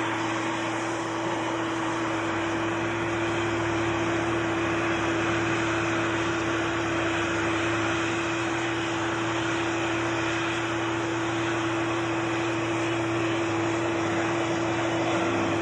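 Oxy-fuel cutting torch burning with a steady hiss as it cuts through a steel beam and throws sparks, with a steady hum beneath it.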